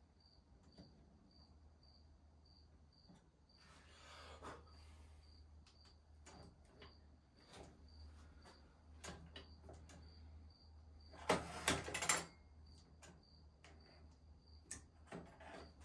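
Hand-operated band saw blade tooth setter being worked: scattered light metal clicks and knocks as the lever is squeezed to set each tooth and the advancer steps the blade along, with a brief cluster of louder clicks about eleven seconds in.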